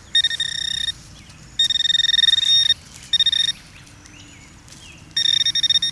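Metal detector sounding a steady, high-pitched tone in four short bursts as it sweeps over a metal target in loose dirt, the tone cutting in and out as the coil passes on and off the target.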